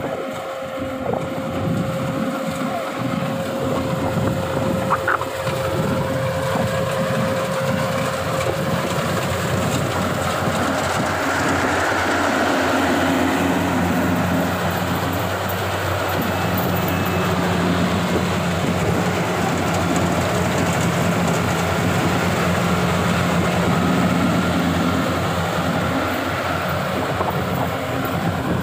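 Compact rice combine harvester running steadily while cutting and threshing rice: a continuous engine and machinery drone.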